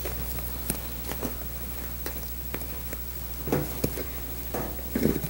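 Hands working a foam seat cushion over a metal spring seat frame: scattered soft rustles, scrapes and light taps, a little louder about three and a half seconds in and again near the end, over a steady low hum.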